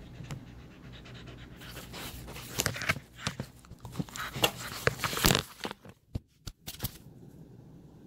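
A husky puppy at the phone and its cardboard stand: a dense burst of close scraping, rustling and knocks, then a few separate knocks as the phone is tipped over onto its back.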